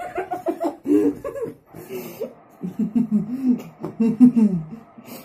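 Young men snickering and chuckling, trying to hold back laughter.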